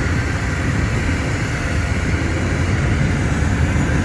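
Steady road noise inside a moving car's cabin, tyres running on a wet highway.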